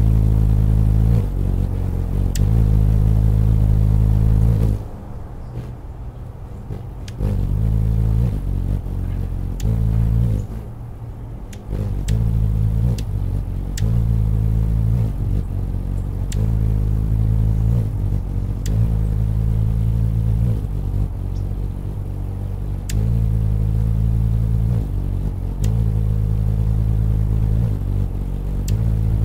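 Anna's hummingbird hovering at a feeder, its wingbeats making a loud low hum that switches back and forth between two pitches, about 50 and 60 beats a second, every second or two. The hum drops away twice for a second or two, about five and ten seconds in, then comes back.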